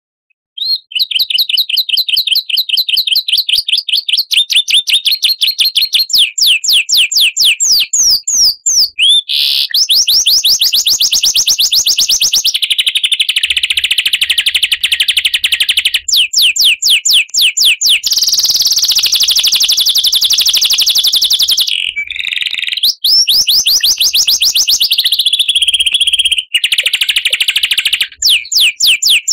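Recorded songbird song: loud, rapid trills of quick repeated high chirps that switch between several song types, with stretches of dense buzzy trilling. It starts about a second in.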